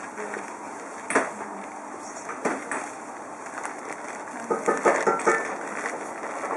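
Kitchen handling noise on a worktop: a sharp knock about a second in and another a little later, then a quick run of clinks and knocks with a brief ringing, over a steady room background.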